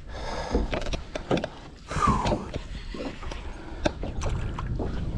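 A few sharp knocks and clicks of gear being handled on a boat over a steady wash of background noise, with a brief falling tone about two seconds in.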